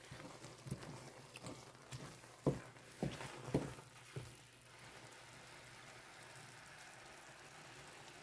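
Wooden spatula stirring a thick egusi and spinach stew in a metal pan: soft, irregular scrapes and knocks for about four seconds, then only a faint steady hiss.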